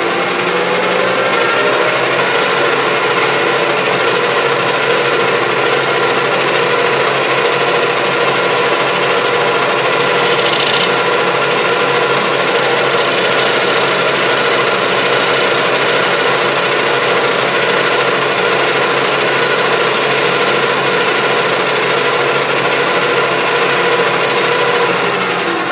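Metal lathe running and turning a chunk of steel with a single-point tool: a steady machine whine under the hiss of the cut, rising in pitch as it comes up to speed in the first second or two. A brief high scrape comes about ten seconds in.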